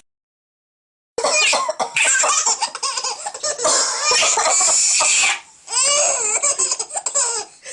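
Starting about a second in, an adult coughs while a seven-month-old baby laughs in reply; after a short pause near the middle the baby carries on giggling with high rising and falling squeals.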